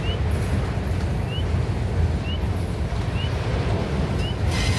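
Loaded autorack freight cars rolling past with a steady low rumble, a short high squeak repeating about once a second, and a brief brighter screech near the end.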